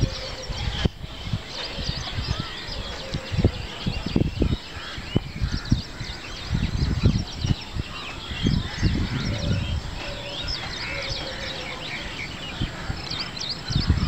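Many birds chirping continuously, with bursts of wind buffeting the microphone as low rumbles every second or two.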